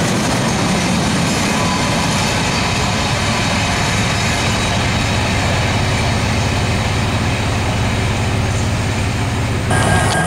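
Union Pacific freight train of covered hopper cars rolling past, a steady rumble of steel wheels on the rails.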